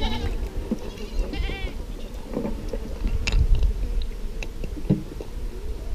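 Goats bleating, twice in the first couple of seconds, over a steady low rumble.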